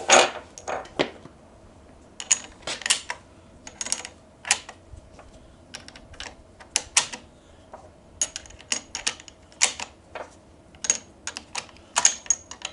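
Irregular metallic clicks and clinks, some with a short ring, of brass rifle cartridges being handled and loaded into a Yugoslavian M48 bolt-action rifle. There is no gunshot.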